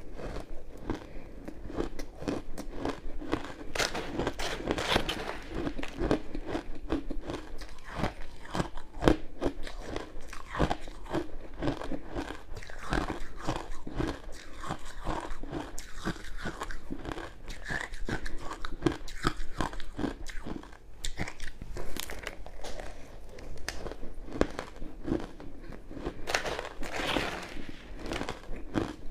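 Crushed ice coated in matcha and milk powder being bitten and chewed close to the microphone: dense, irregular crunching and crackling.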